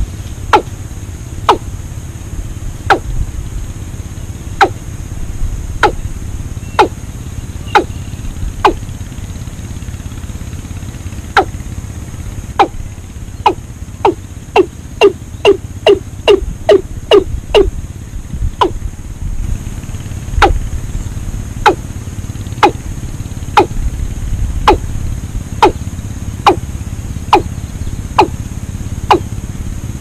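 Watercock calling: a long series of short, sharp notes, each dropping quickly in pitch, about one a second, quickening to about three a second midway, over a steady low rumble.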